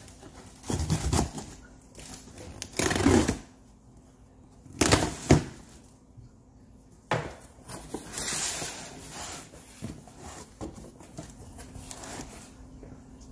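Cardboard shipping box being opened by hand: several short bursts of cardboard scraping and rustling as the flaps are pulled open and the packed contents shift. The loudest bursts come about three and five seconds in.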